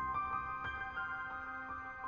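Background music: a slow melody of single notes, each starting sharply and ringing on.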